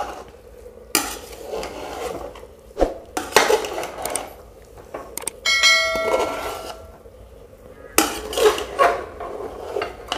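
Long metal spatula stirring and turning cooked biryani in an aluminium pot, scraping and clanking against the pot's side at irregular intervals. A ringing chime lasts about a second and a half near the middle.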